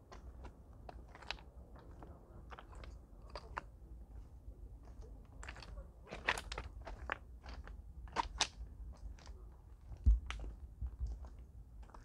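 Footsteps of a walker on a forest path, an irregular run of steps at walking pace. A loud low thump about ten seconds in.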